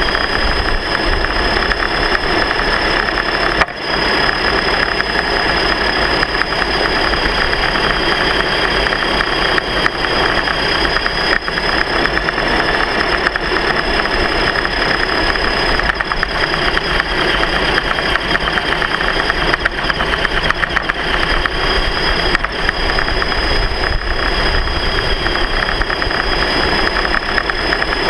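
A vehicle's motor running at a steady speed: a constant high whine over a low rumble, with a brief dip about four seconds in.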